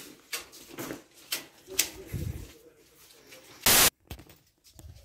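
Rustling and small clicks from a handheld phone being carried and moved, with one loud short knock or thump on the microphone about four seconds in.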